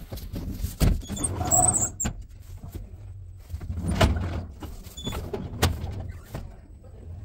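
Elevator car travelling between floors, with a steady low motor hum. Several sharp, loud knocks and clunks come at intervals over it.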